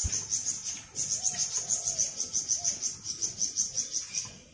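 A high-pitched, steady pulsing trill of an insect, cricket-like, at about six pulses a second, with a single low knock at the very start.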